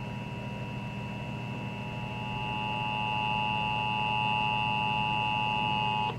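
Emergency Alert System attention signal: the steady two-tone alarm tone of 853 and 960 Hz over a low hum, cutting off suddenly about six seconds in.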